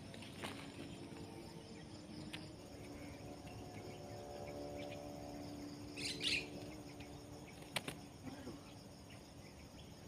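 Faint rustling and a brief flutter of wings about six seconds in, as a Javan myna tangled in a nylon mist net is worked free by hand, with a faint steady hum behind it and a sharp click near the end.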